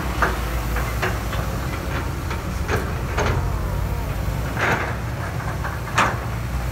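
Kobelco hydraulic excavator's diesel engine running steadily while it loads a dump truck. Scattered metallic clunks from the bucket and machine come through it, plus a rush of soil pouring out of the bucket a little past the middle. The sharpest clunk is about six seconds in.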